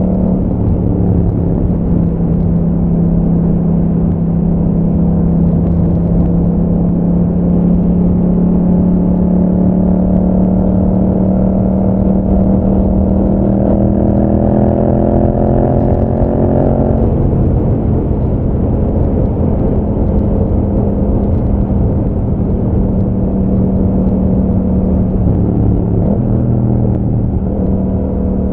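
2021 Yamaha MT-07's parallel-twin engine running through an Akrapovič exhaust while riding at a steady throttle. For several seconds around the middle the pitch climbs slowly, then drops suddenly at once and settles steady again.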